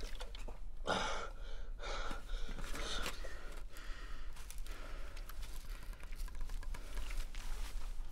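A man's heavy, irregular breathing with gasps, the breathing of someone tired and straining; the strongest breath comes about a second in.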